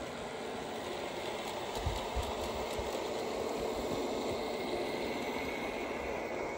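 G-scale model garden-railway train running along the track, a steady running noise that grows slightly louder, with a couple of soft low thumps about two seconds in.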